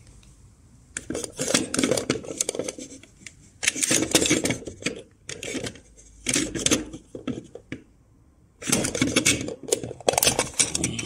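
Hollow plastic Hogwarts-crest capsule case being handled, its small hinged lid flipped open and shut: several bursts of rapid plastic clicking and clattering with short quiet gaps between them.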